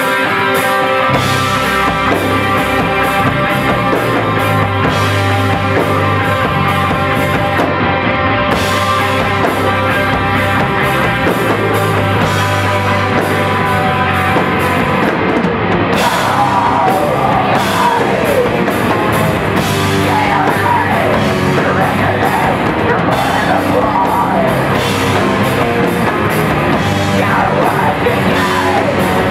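Live crust punk band playing loud, with distorted electric guitar, bass and a pounding drum kit; yelled vocals come in about halfway through.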